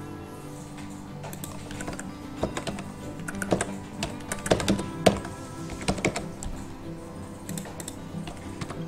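Typing on a computer keyboard: irregular runs of key clicks, busiest in the middle, over quiet background music.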